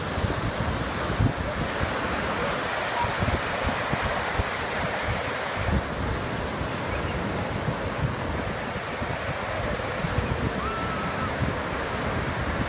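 Ocean surf breaking and washing through the shallows in a steady rush, with gusty wind buffeting the phone's microphone.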